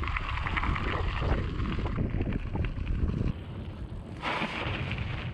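Wind buffeting the microphone over the crunch of bicycle tyres rolling on gravel while riding. The rumble dips about three seconds in, then rises again.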